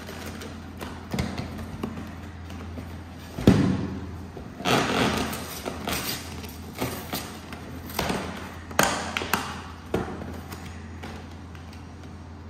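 Cardboard gift box being opened by hand: paperboard flaps and inner tray scraping and rustling, with a sharp thump about three and a half seconds in and scattered taps and scuffs after.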